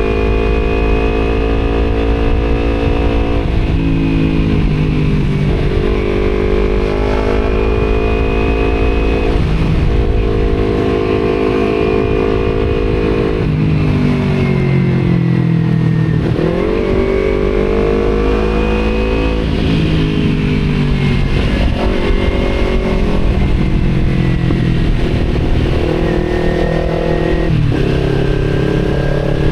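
Kawasaki Z250's parallel-twin engine through an Akrapovic exhaust, revving up through the gears, its pitch climbing and then dropping at each shift several times, over a steady rush of wind on the microphone.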